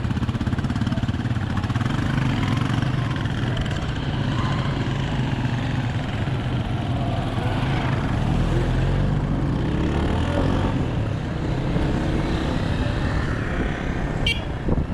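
Motorcycle engine running steadily on the move, under a continuous rushing noise.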